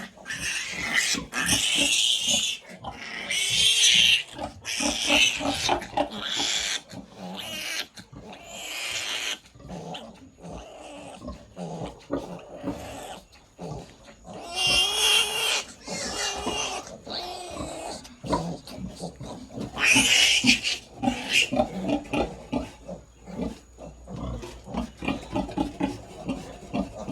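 A piglet squealing loudly in repeated shrill bursts of about a second each, with rapid grunts between them, as it is held down to have its needle teeth clipped.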